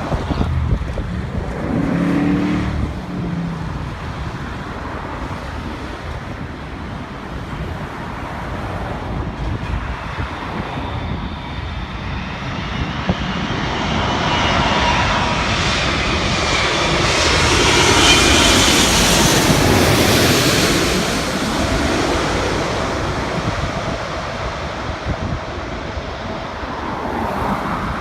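Jet airliner flying past, its engine roar swelling to a peak about two-thirds of the way through and then fading, the pitch of its whine sweeping as it passes. Wind buffets the microphone throughout.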